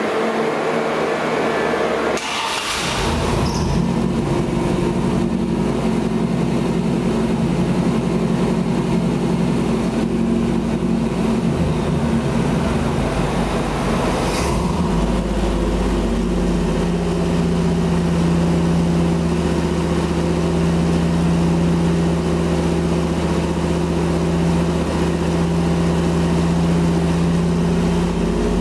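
Chevrolet 305 small-block V8 in a 1954 Chevrolet pickup starting up about two seconds in and then running steadily. About halfway through there is a short click, and after it the engine settles to a lower, steadier idle.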